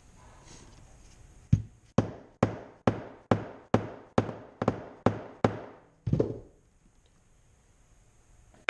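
A hammer driving a hole punch through wet vegetable-tanned harness leather, with about eleven sharp strikes at a little over two a second. They stop about two seconds before the end.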